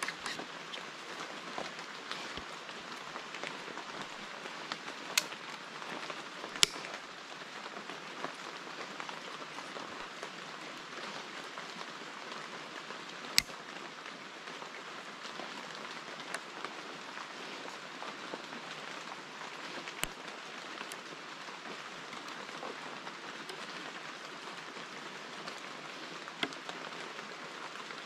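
Bamboo strips clicking sharply a handful of times as they are handled and lashed onto a bamboo pole, over a steady hiss.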